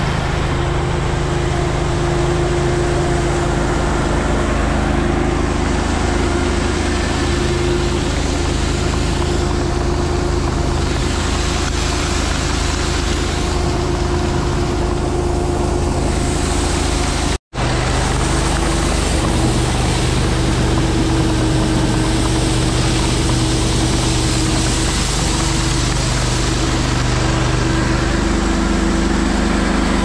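Truck engine running steadily at idle, a constant hum. It cuts out for an instant about two-thirds of the way in, then runs on at a slightly different pitch.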